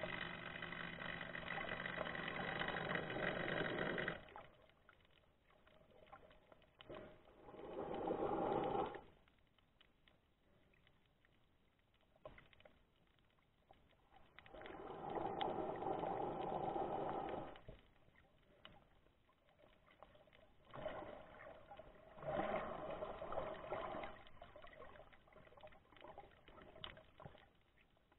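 Breathing and bubble noise from the swimmer holding the camera, heard underwater, coming in bursts of one to four seconds every few seconds with quiet gaps between.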